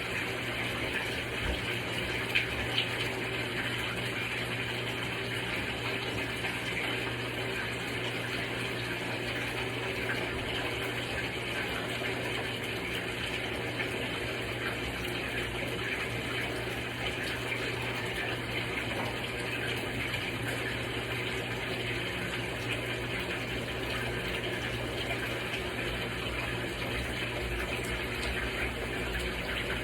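Portable twin-tub washing machine at work during its rinse and drain: a steady rush of water over an even low motor hum, unchanging throughout.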